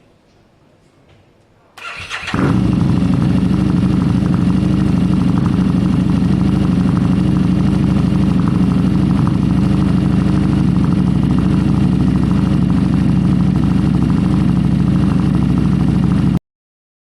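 A motorcycle engine is started; it catches about two seconds in and then runs steadily until it cuts off abruptly near the end.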